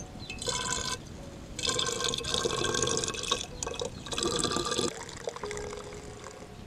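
Homemade rhododendron wine being poured into a glass bottle, splashing and gurgling in three spells as the bottle fills.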